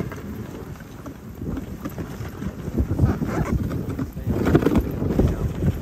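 Dog sled running over a packed snow trail behind a team of sled dogs: the runners scrape and crunch on the snow amid the dogs' footfalls, with wind buffeting the microphone. It grows louder about a second and a half in.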